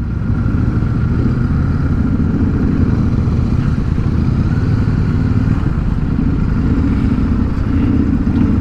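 Royal Enfield Super Meteor 650's parallel-twin engine running steadily at low revs as the motorcycle rolls slowly in and stops.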